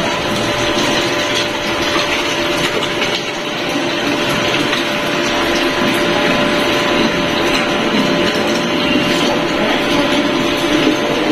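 Water running from a tube nozzle into a plastic bottle, a steady rushing and splashing stream, with a faint steady hum under it.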